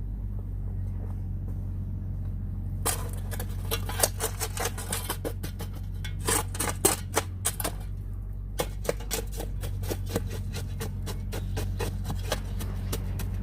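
A steady low mechanical hum with many irregular sharp clicks and knocks over it from about three seconds in, pausing briefly in the middle.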